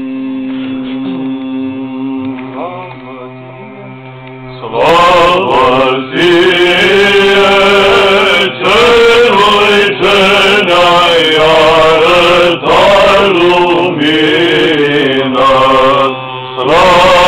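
Orthodox church chanting by monks' voices during a tonsure service. For the first few seconds it is quieter and muffled over a long held note. About five seconds in it turns loud and full, sung in phrases of about a second each.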